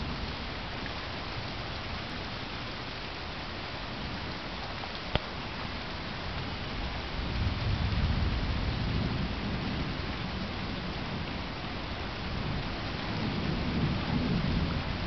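Steady rain with thunder rumbling: a low roll from about seven seconds in, and another near the end. A single sharp click about five seconds in.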